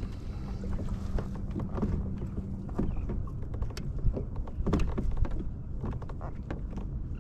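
Wind buffeting the microphone on a fishing kayak at sea, with scattered small knocks and water sounds against the hull. A faint steady hum runs through the first few seconds.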